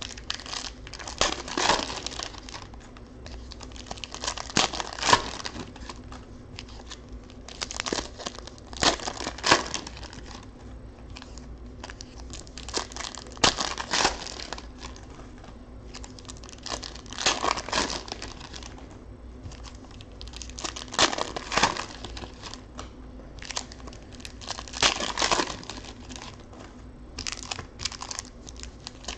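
Foil football-card pack wrappers crinkling and tearing as they are ripped open by hand, in loud bursts every few seconds with softer rustling between.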